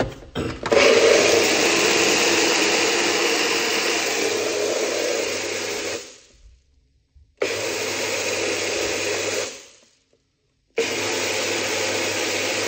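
Personal bullet-style blender running on pomegranate seeds in water, pulsed in three runs: one of about five seconds, then two of about two seconds, with short silent gaps between. It is blended only briefly so the seeds loosen without turning to a smoothie. A few knocks come just before the first run.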